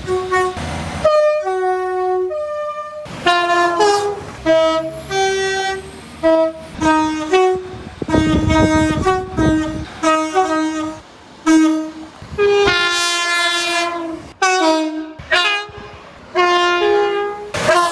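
Two-tone horns of British passenger multiple-unit trains sounding over and over in short blasts, each alternating a high and a low note. About halfway through, a train rushes past, and a little later a louder horn sounds over the noise of a passing train.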